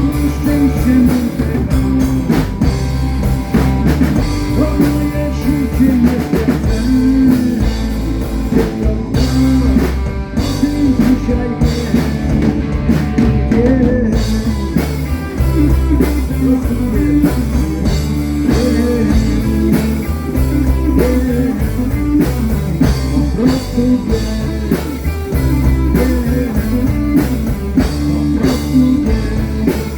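Live band playing the instrumental stretch of a rock song, with a drum kit keeping a steady beat under guitar.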